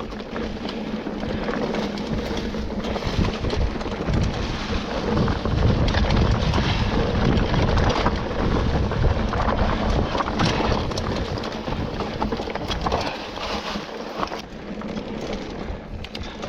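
Mountain bike descending a rough trail: tyres rolling over dirt and rocks, with frequent knocks and rattles from the bike and wind rumbling on the microphone.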